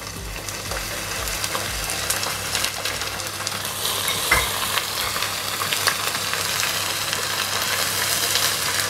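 Ginger paste sizzling in hot ghee with browned onions, the frying growing louder a few seconds in as a slotted spatula stirs it through, with light scraping and clicks of the spatula against the pot.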